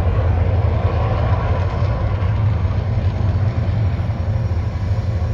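Deep, steady rumble of the Mirage Volcano show's eruption effects, loud and continuous with no distinct beats.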